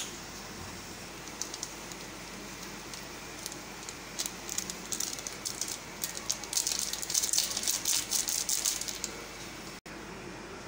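A foil seasoning sachet crinkled and shaken out over a pot of noodles, a dense run of crackling rattles starting about four seconds in and thickest about two-thirds of the way through. Under it, the steady bubbling of the boiling pot.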